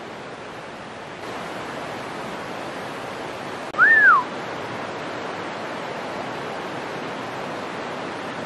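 Steady rushing of river water, a little louder from about a second in. Near the middle comes one short whistled note that rises and then falls.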